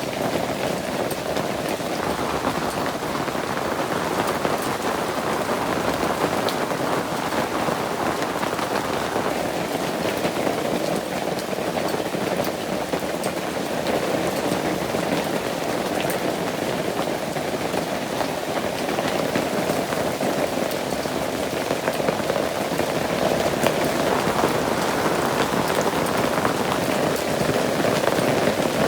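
Steady rain falling and pattering on surfaces, a continuous even hiss with scattered drop ticks, growing slightly heavier near the end.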